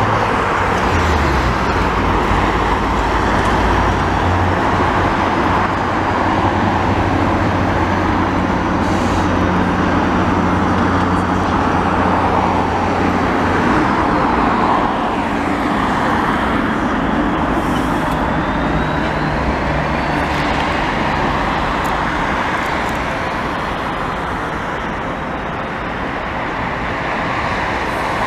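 Steady city street traffic mixed with the low, steady hum of an EMD F59PH diesel locomotive's 12-cylinder engine as a commuter train passes. The hum stops about halfway through.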